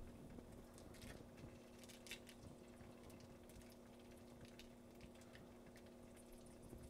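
Near silence: a steady low hum, with a few faint soft clicks and squishes as tomato paste is squeezed from a tube into a pan of hot oil.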